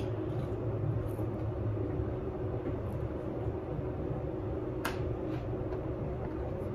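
Steady low rumble and hum of room background noise, with a sharp click about five seconds in.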